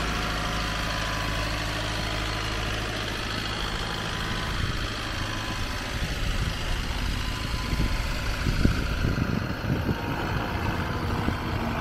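Diesel engine of a JCB 86C-1 8.6-tonne tracked excavator idling steadily, with a few irregular low thumps about eight to ten seconds in.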